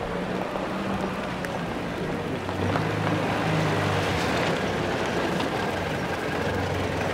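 A vintage car engine running with a low hum that shifts in pitch a few times, over a steady background of street noise.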